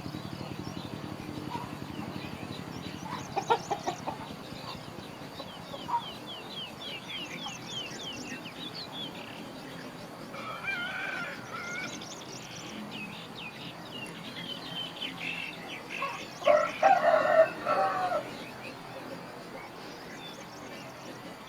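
Chickens: a rooster crows once, the loudest sound, about three-quarters of the way through. Earlier there are clucking and runs of quick, high bird chirps.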